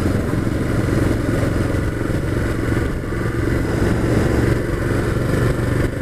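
Motorcycle engine running steadily at cruising speed, with wind and road noise over the on-board microphone.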